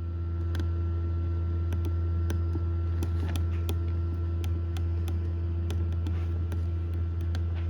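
Egg incubator running with a steady low hum, with small sharp clicks coming at irregular intervals.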